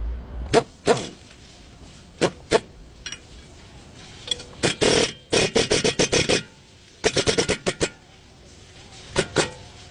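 A series of sharp knocks and clicks, some single and some in quick runs of several a second, with a short pause between groups.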